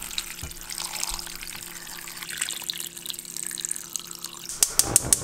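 Rice-washing water pouring into the stew pot, a steady splashing pour. Near the end it gives way to a quick run of sharp clicks, about five a second.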